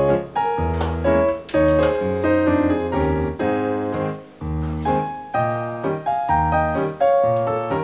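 Background piano music, a melody of struck notes.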